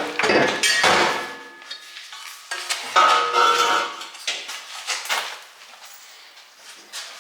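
Metal tools and car parts clanking and rattling during work under a car: several sharp clanks in the first second and another around three seconds in, each ringing briefly, then lighter taps.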